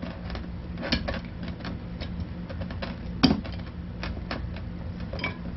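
Small clicks and knocks from the stopper and wire clasp of a glass swing-top bottle being worked open, with one louder clack about three seconds in.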